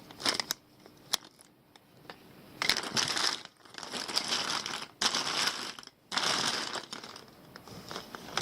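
Plastic Bic lighters being rummaged through in a pile, rustling and clattering against each other. There are a couple of clicks at first, a quiet moment, then several bursts of rustling a second or so long each.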